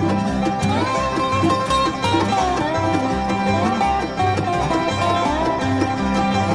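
Bluegrass band playing an instrumental break: a dobro lead whose notes slide up into pitch, over banjo, guitar and a bass keeping a steady, even beat.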